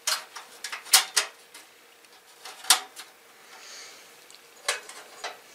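Metal expansion-slot cover clicking and clacking against a desktop computer case as it is handled and slid into an empty slot: a handful of separate sharp knocks, the loudest about a second in.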